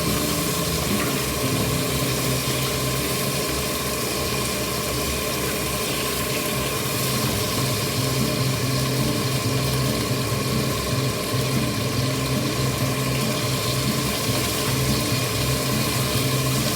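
Pork ribs sizzling steadily as they fry in hot oil in a pot, over a constant low hum like a small motor running.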